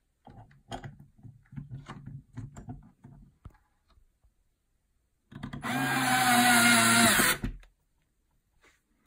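Bosch cordless screwdriver driving screws into a metal bracket. First comes a string of short, uneven bursts and clicks, then about halfway through the motor runs loudly for about two seconds at a steady pitch and stops.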